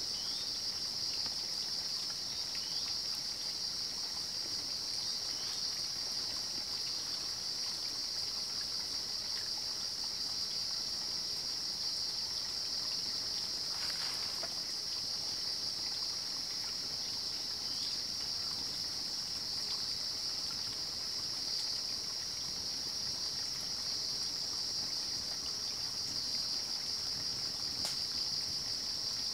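Evening insect chorus: a steady, high-pitched chirring that never lets up, with one short crackle about halfway through.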